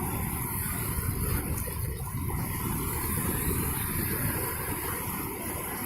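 Steady rumble of wind on the microphone mixed with breaking surf on the beach.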